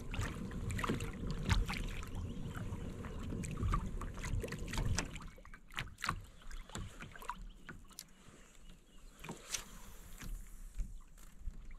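Water lapping and knocking against a fishing kayak's hull, with a low rumble for about the first five seconds, then quieter with scattered small knocks.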